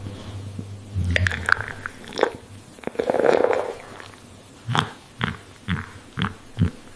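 Coffee being sipped: a run of short slurping and mouth noises with scattered clicks, a longer noisy slurp about three seconds in, then several short sips near the end.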